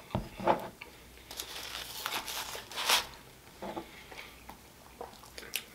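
Aluminium foil wrapper crinkling in a few short rustles as a foil-wrapped gyro is handled and set down, loudest about three seconds in, along with small handling noises from the cap of a hot sauce bottle being opened.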